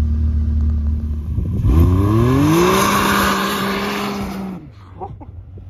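2021 Can-Am Maverick X3 Max turbo UTV engine: a steady low drone, then about a second and a half in the revs climb over about a second and hold high under hard acceleration, with a loud rushing hiss on top. The sound cuts off suddenly near the end, leaving a faint hum.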